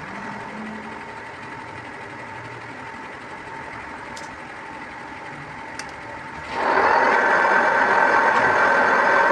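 A machine running steadily with a faint whine. About six and a half seconds in, a much louder machine sound starts abruptly, with several steady whining tones.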